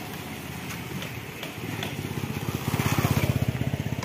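A motorcycle engine passing close by, its fast even putter growing louder to about three seconds in and then fading.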